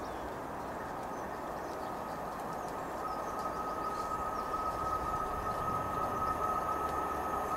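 A diesel locomotive hauling passenger coaches approaches, its steady noise growing louder; about three seconds in, a steady whine comes in over it.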